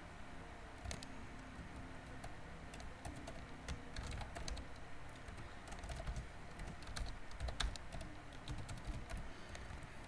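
Typing on a computer keyboard: faint, uneven keystroke clicks coming in short runs.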